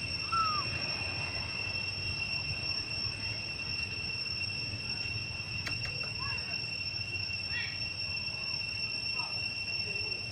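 Steady high-pitched drone of insects, with a few short squeaky calls over it, the loudest about half a second in.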